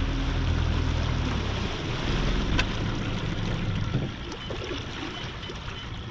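Wind buffeting the microphone over water lapping around a bass boat, a steady rushing noise. A low, steady motor hum runs under it for the first second and a half, then stops, and a single sharp click comes about halfway through.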